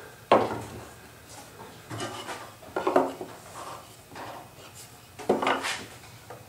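A wooden picture frame knocking and scraping against a plywood V-cradle spline jig as it is set in and shifted into position: several sharp clunks, the loudest just after the start, at about three seconds and at about five and a half seconds. The saw is not running.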